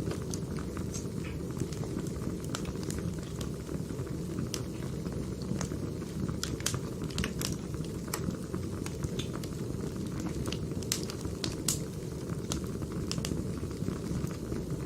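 Wood fire crackling: a steady low rumble of burning logs with frequent sharp, irregular pops and snaps.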